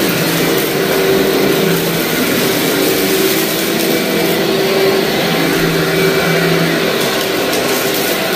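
Upright vacuum cleaner running steadily with a constant motor hum as it is pushed over dirty carpet, with grit and debris crackling as they are sucked up.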